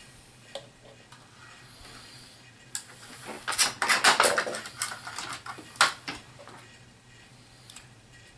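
Hard plastic clicking and rattling as HeroClix miniatures and their booster packaging are handled, in a dense burst from about three to six seconds in.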